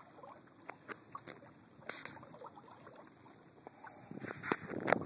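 Water sloshing and lapping around a canoe on a lake, with scattered sharp knocks. About four seconds in it gets louder, with a burst of splashy noise and several sharp knocks.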